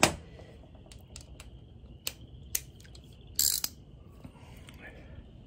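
Hand tools being handled against metal: a loud knock at the start, scattered sharp clicks, and a short scraping rasp about three and a half seconds in.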